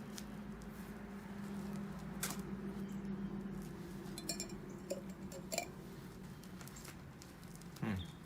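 Handling noises while a bicycle inner tube is wetted with soapy water and checked for leaks: a few light clicks and clinks over a steady low hum, with a short falling squeak near the end.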